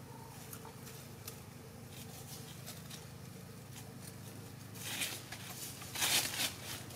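Dry leaf litter rustling as chickens shift in it, with scattered light ticks and two louder rustles near the end.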